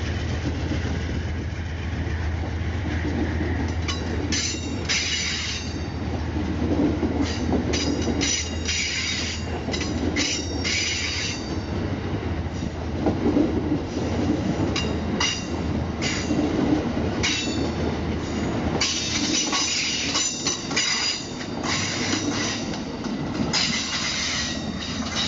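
Passenger train moving through the station: a steady low locomotive drone under repeated bursts of high-pitched wheel squeal and clicks of wheels over rail joints. The squeals come thickest near the end.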